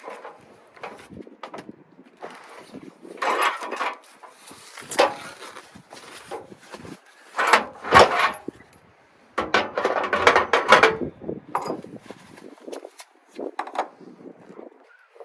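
Irregular knocks, clunks and clatter with rustling in between, as cooking gear is handled, moved and set down; the loudest knocks come about eight seconds in and around ten to eleven seconds in.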